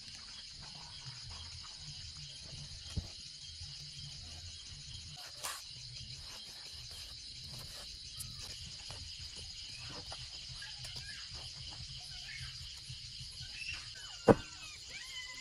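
Crickets chirping in a steady, pulsing high trill, with scattered light clicks and scrapes of a cleaver working on a raw fish. A single sharp knock comes near the end.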